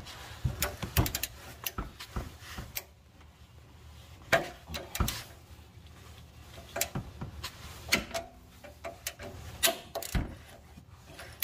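Irregular sharp metallic clicks and knocks of a slotted O2 sensor socket on a long bar straining against a seized upstream oxygen sensor, the socket slipping on the sensor instead of turning it.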